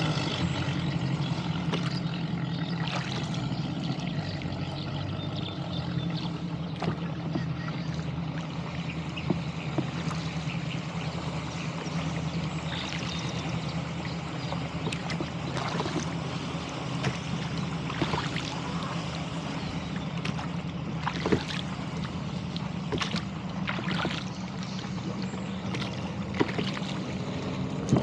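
An engine idling steadily, with water lapping and splashing and occasional sharp knocks.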